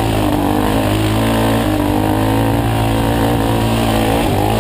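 Dirt bike engine running hard on a wooded race trail, heard from on the bike, its pitch rising and falling as the rider works the throttle.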